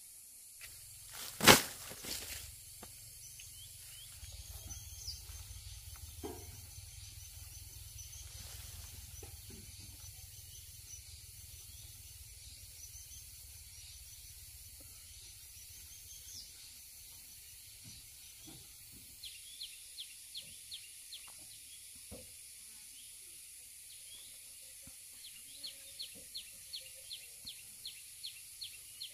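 Rural outdoor ambience: a steady high hiss with scattered bird chirps, one loud sharp knock about a second and a half in, then scattered soft knocks and, later, two runs of quick high ticks, several a second.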